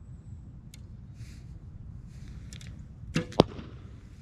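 A bow shot: the snap of the string on release, then about a quarter second later the sharp smack of the arrow striking the bag target, the louder of the two.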